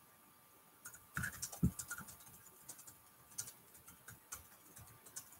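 Computer keyboard typing: faint, irregular key clicks that start about a second in and go on in uneven runs.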